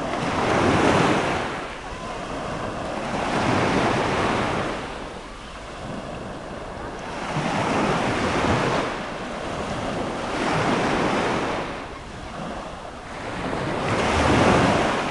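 Small waves breaking on a sandy shore, the surf swelling and washing back about every three to four seconds, five times.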